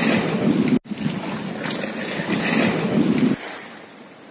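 Wind rushing over the microphone out on open water, with a brief dropout about a second in. About three seconds in it cuts off sharply to a much quieter wash of water.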